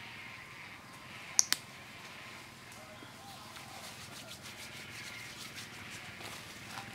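Faint outdoor background with two sharp clicks close together about a second and a half in.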